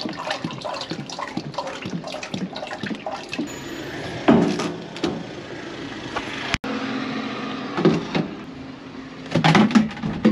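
Used engine oil pouring from a plastic oil jug into a waste-oil collection tank, with irregular gurgling and splashing, ending in a few clunks near the end.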